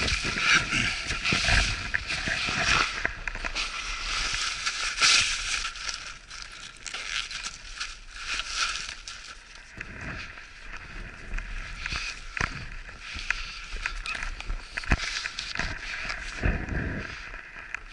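A small snow-vehicle engine running steadily, with rustling and knocks of gear being handled on the sled.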